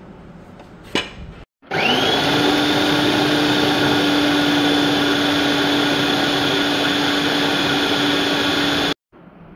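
Electric food processor chopping onion, green chillies, capsicum and coriander. After a click, its motor spins up with a rising whine about two seconds in and settles into a loud, steady whine, then cuts off suddenly near the end.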